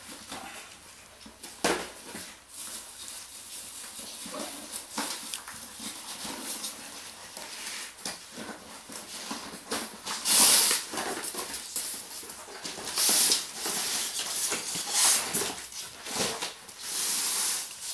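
Cardboard box and styrofoam packing being handled and pulled apart, with rustling, scraping and a few knocks, in louder bursts during the second half.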